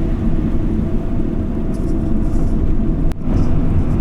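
Refrigerated delivery van driving, its engine and tyre rumble heard steadily from inside the cab, with a single brief click about three seconds in.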